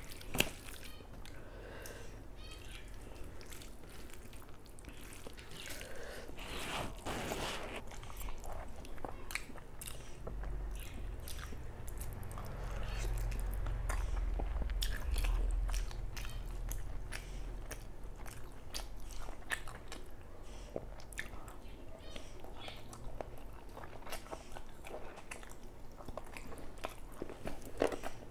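Close-miked eating sounds: chewing, wet mouth clicks and smacks of rice and chicken curry eaten by hand, with many short clicks throughout. A low rumble rises for several seconds in the middle.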